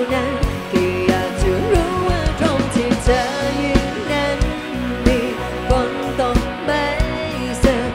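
Live band playing a pop-rock song: a woman singing over electric guitar, bass and drums with a steady beat.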